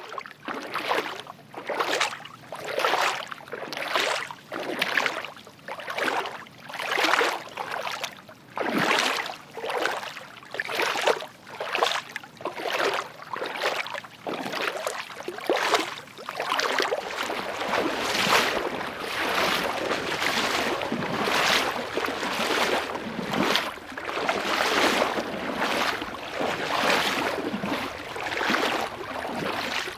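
Footsteps wading through shallow water, one splashing step roughly every second, with water sloshing between the steps.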